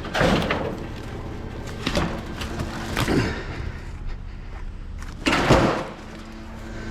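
Steel scrap pieces being handled and loaded: a series of sudden scraping clanks, the loudest about five seconds in, over a steady low hum.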